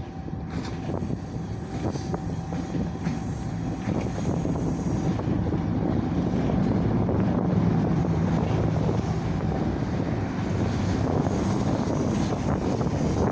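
Freight train rolling past under electric traction, a steady rumble of wheels on rail with scattered faint clicks, growing a little louder about six seconds in. Wind buffets the microphone.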